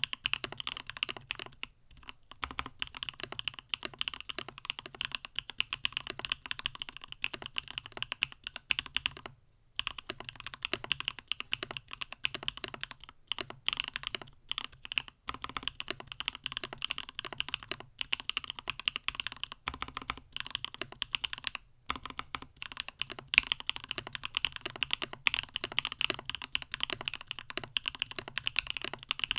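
Fast, continuous typing on a mechanical keyboard with Gateron Smoothie linear switches in a CannonKeys StackedTKL stacked-acrylic case: a rapid stream of keystroke clacks. There are brief pauses about two, ten and twenty-two seconds in.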